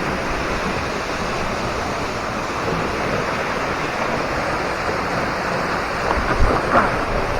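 Waterfall pouring with a steady, even rush. A few low wind bumps on the microphone come about six seconds in.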